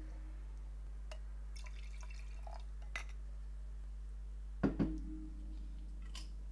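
Red wine poured and glassware handled: light clicks and taps, then two sharp knocks of glass or bottle set down on a table about four and a half seconds in, each followed by a brief glassy ring. A steady low hum runs underneath.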